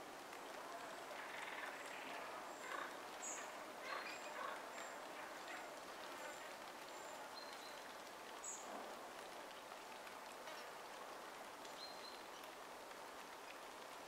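Faint outdoor ambience with a steady hiss. A small bird gives a series of short, very thin high calls, about two a second, from roughly two to seven seconds in, and a couple of separate high chirps follow later.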